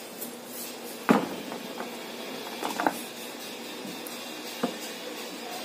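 A few sharp knocks and clicks, the loudest about a second in, as a Ryobi polisher and a screwdriver are handled on a wooden workbench, over a faint steady background hum.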